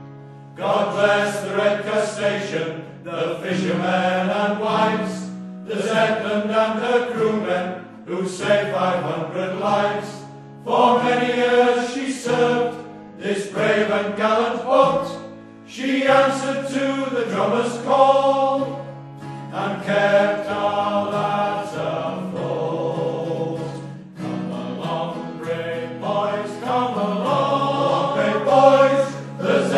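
Male voice choir singing a sea ballad together in phrases of a couple of seconds, accompanied by an acoustic guitar.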